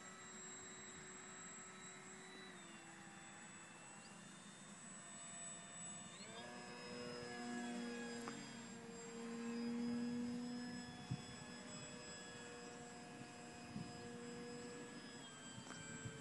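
Electric motor and propeller of an RC model Fokker Dr.I triplane whining in flight, faint and distant. The pitch drops about two and a half seconds in, rises sharply about six seconds in, and the whine grows louder for a few seconds before the pitch drops again near the end.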